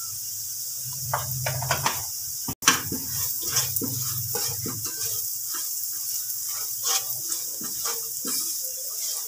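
Oil sizzling in a non-stick frying pan while a spatula stirs chana dal, peanuts and chillies with turmeric, scraping the pan in short, irregular strokes. A brief dropout and a sharp click come about two and a half seconds in.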